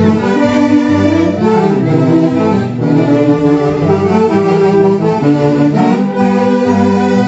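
Festive band music playing a continuous melody, led by bowed strings such as violin with wind instruments underneath.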